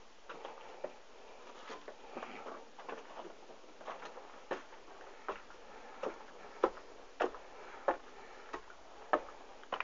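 Footsteps of a person walking on concrete and gritty, rubble-strewn ground, climbing stairs and then walking on. The steps are uneven at first, then settle about halfway in into a steady walking pace of roughly one and a half steps a second.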